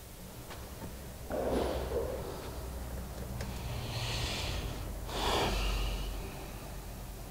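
A person breathing out hard through the nose twice, about a second in and again about five seconds in, with a softer rustle of cloth between them, over a low steady hum.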